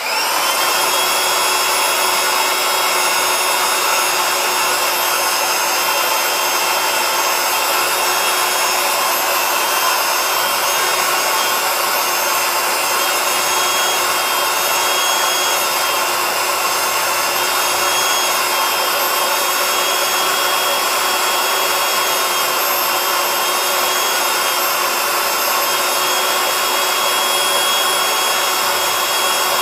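Small handheld electric air pump switched on, spinning up within a fraction of a second and then running steadily, its motor whine over the rush of air as it inflates a vinyl inflatable chair.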